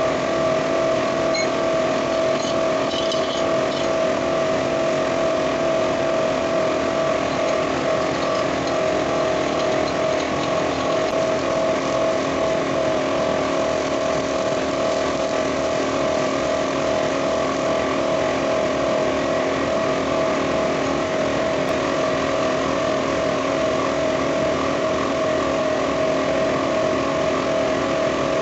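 A machine running steadily, giving a constant hum with a clear steady tone and no change in speed.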